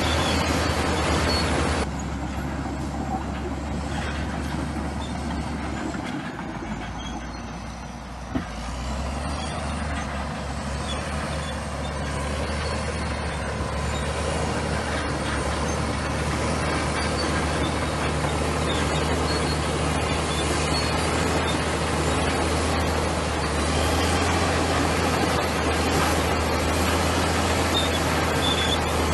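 Bulldozer diesel engine running steadily with a deep hum. It eases off for a few seconds about six seconds in, with a single sharp knock near eight seconds, then picks up again.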